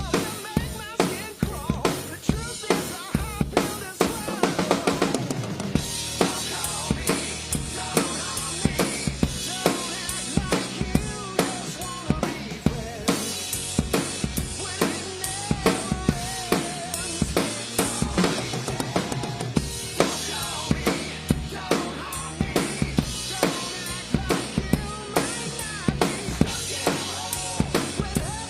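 Acoustic drum kit played in a steady rock groove, with regular bass drum and snare hits, along with a song recording in which singing can be heard.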